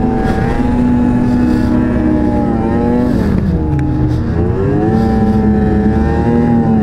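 Ski-Doo snowmobile engine running at speed under the rider, eased off about three seconds in so the pitch drops, then throttled back up and held steady.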